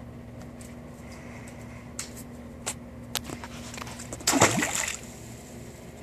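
A short, loud splash as a camera is plunged into swimming-pool water, preceded by a few light clicks and knocks; the steady background hum stops as the microphone goes under.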